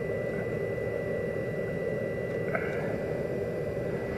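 Corvette's carbureted V8 idling steadily while its carburetor's fast idle is being set, with a thin steady high whine over the rumble.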